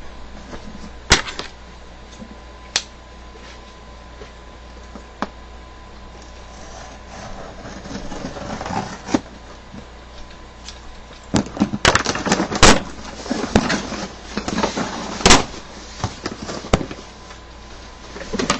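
Packaging being handled and opened by hand: a few sharp clicks and knocks at first, then rustling, then a busy run of knocks, scrapes and rustles from about eleven seconds in.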